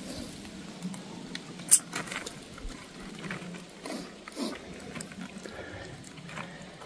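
Woven plastic sack full of apples rustling and crinkling as its neck is gathered and tied by hand, with scattered small clicks and one sharp snap a little under two seconds in.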